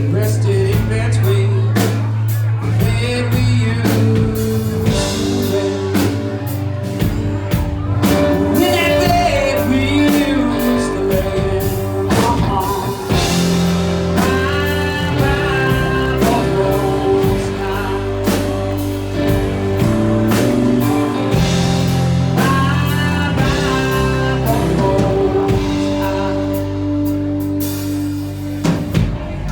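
A band playing a rock song: singing over guitar and drums, with sung phrases coming in about a third of the way through.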